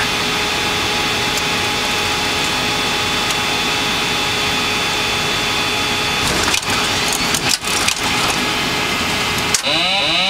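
Steady, loud cockpit noise of a Boeing 747-200 full-flight simulator on a landing approach, with a few faint steady tones in it. Several thumps come about six and a half to eight seconds in, as the runway comes up underneath, and another comes shortly before the end.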